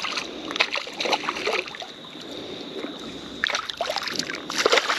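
Hooked bream splashing and thrashing at the water surface beside a kayak as it is played in, in several irregular bursts of short splashes.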